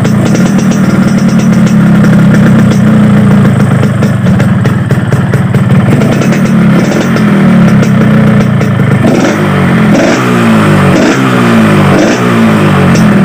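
Yamaha RX-King two-stroke single-cylinder motorcycle engine running through its reworked exhaust, idling steadily and then, from about nine seconds in, blipped repeatedly, each blip a quick rising rev. The exhaust has been rebuilt for a crisp, raspy 'garing ngorok' note.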